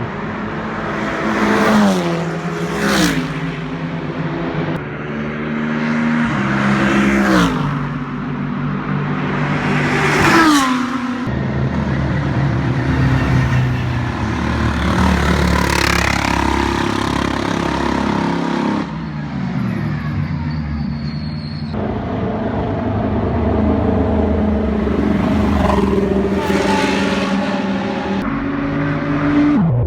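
GT3 race cars passing one after another at speed. Each engine note swells, then drops in pitch as the car goes by, with gear changes stepping the note up and down.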